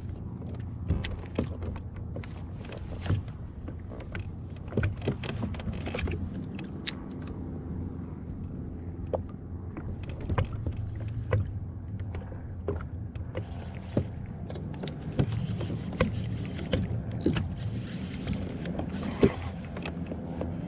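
Sounds aboard a fishing kayak on the water: a steady low hum with many light clicks and taps scattered through it.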